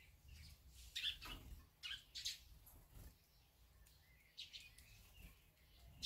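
Barn swallow at its mud nest giving a few faint, short chirps: a cluster around one to two and a half seconds in, then another pair about four and a half seconds in.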